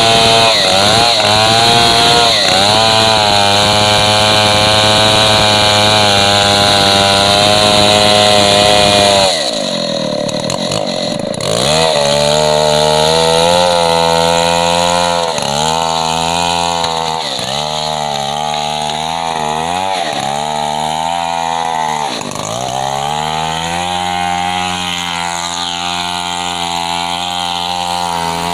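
Stihl MS 070 two-stroke chainsaw ripping lengthwise through a gmelina beam at full throttle under load. About nine seconds in the engine sound drops away suddenly. From about twelve seconds it runs again in the cut, its pitch rising and falling over and over.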